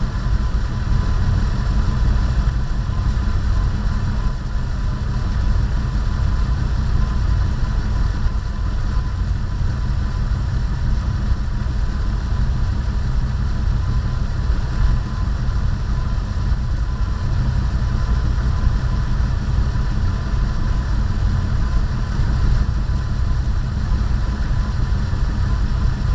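Car engines idling steadily at a standstill, picked up close through a bumper-mounted camera's microphone as a heavy low rumble, with a faint steady tone above it.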